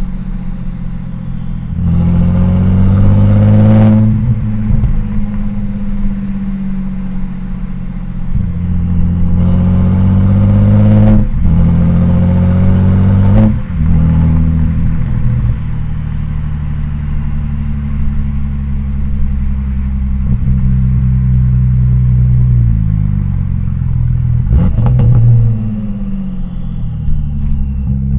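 Tuned twin-turbo 2.7-litre V6 of an Audi S4 B5 pulling through gentle accelerations. The engine note climbs three times, with a high turbo whistle rising and falling alongside, and each time drops off sharply as the throttle is lifted, the lift-off bringing turbo flutter.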